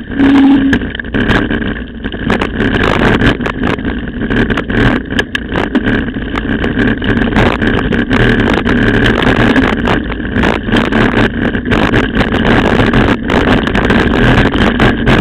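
Mountain bike riding over a gravel dirt road: a continuous rumble of tyres on loose gravel with frequent rattling knocks as the camera is jolted, and wind on the microphone. A brief squeal sounds in the first second.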